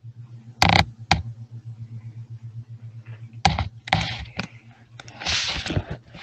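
Irregular clicks and short rustling noises over a steady low electrical hum, picked up by an open microphone on a video call.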